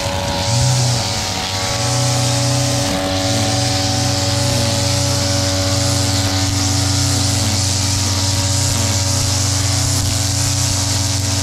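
Backpack brush cutter with a flexible drive shaft, its engine running steadily at high speed while the spinning nylon line cuts through grass with a steady hiss.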